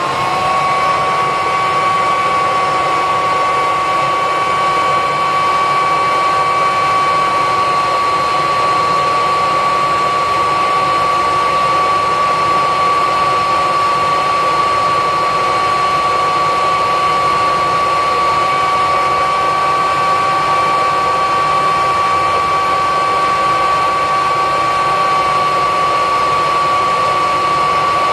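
Classic Kirby upright vacuum cleaner's motor and fan running at full speed with a steady high-pitched whine. The nozzle is sealed onto an airflow test box, and the machine is drawing air through a HEPA bag conversion.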